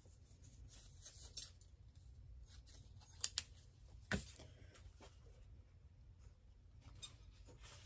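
Scissors cutting a strip from a thin plastic tablecloth: faint snips, with two sharper clicks about a second apart a little past the middle.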